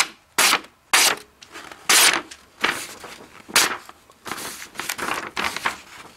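SOG Fielder XL folding knife's mirror-polished blade slicing through a sheet of paper: about ten quick cuts, each a short sharp swish. The blade cuts cleanly, sharp out of the box.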